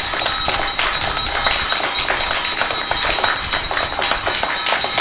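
Many children's hand claps layered together in a dense, irregular patter, with metallic clinks and a high ringing from a struck steel plate.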